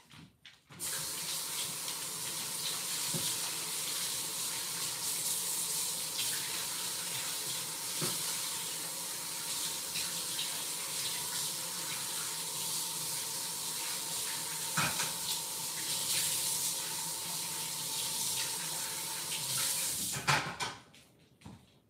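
Kitchen tap running steadily into the sink, starting about a second in and shut off near the end, with a few light knocks from things handled under the water.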